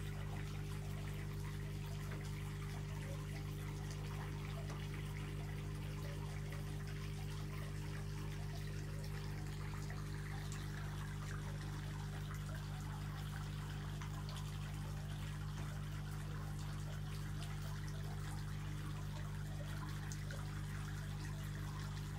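Steady low hum with a faint, trickling, water-like hiss above it.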